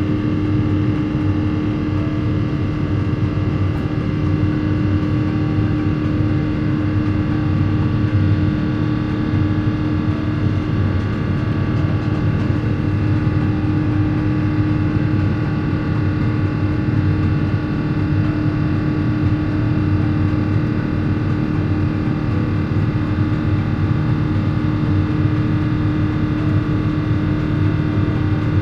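Steady cabin noise inside an Airbus A350-900: its Rolls-Royce Trent XWB engines and the rush of air, a constant drone with a strong steady hum and several fixed tones above it.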